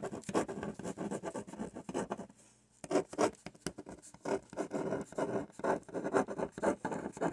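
Pen scratching on paper in quick, irregular strokes as a list item is written, with a short pause about two and a half seconds in.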